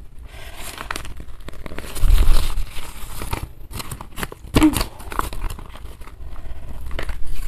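Printed paper food wrapper being unfolded and crinkled by hand, in irregular rustles and crackles, with a louder stretch of crinkling about two seconds in.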